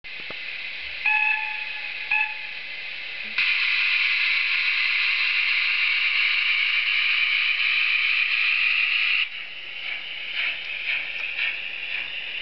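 DCC sound decoder in a model GWR 38xx 2-8-0 steam locomotive, heard through its small onboard speaker: a steady background hiss with two short whistle toots about a second and two seconds in, then a loud steady hiss of steam from about three to nine seconds. It ends with slow exhaust chuffs as the model pulls away.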